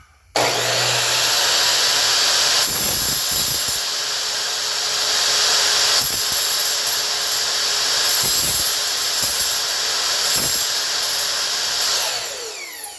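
A high-speed power cutting tool switches on about half a second in and runs steadily while cutting through an RC car and its drive shaft. It switches off near the end, its whine falling in pitch as it spins down.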